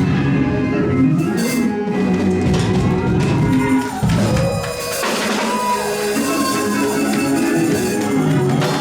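Live gospel praise-break music: a church band playing loudly, with drums and percussion keeping the beat under the instruments.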